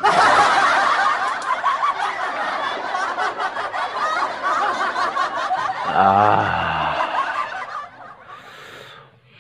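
Laughter sound effect: several people snickering and chuckling together, with one louder laugh about six seconds in, dying away about eight seconds in.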